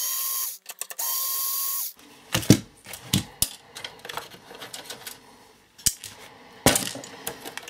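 Small electric screwdriver whirring in two short runs as it backs out the rear-panel screws of a satellite set-top box, followed by light clicks and knocks of the screws and metal casing being handled, with one sharper knock near the end.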